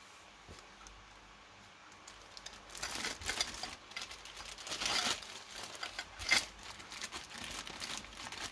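Clear plastic parts bag crinkling and rustling in the hands as the plastic kit wheels on their sprue are handled in it. The crinkling starts a couple of seconds in and comes in irregular bouts, with one sharp click partway through.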